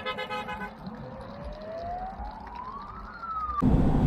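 Vehicle horns tooting in short pulses at the start. Then a single clean tone rises steadily for about two seconds, dips slightly and cuts off. Near the end a motorhome's steady road and engine noise, heard from inside the cab, starts abruptly and is the loudest sound.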